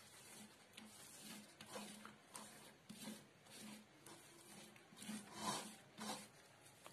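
Faint soft rubbing and smearing of a hand spreading thick wet besan batter over a taro leaf, in a series of uneven strokes, the loudest about five and a half seconds in.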